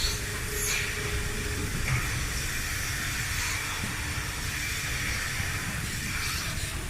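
Steady hiss and low rumble of an 80-bail rotary milking shed's machinery running during milking.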